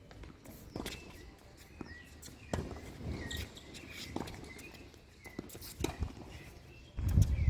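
Footsteps and scattered sharp knocks of tennis players moving about the court, with faint short high-pitched chirps. A loud low rumble comes in near the end.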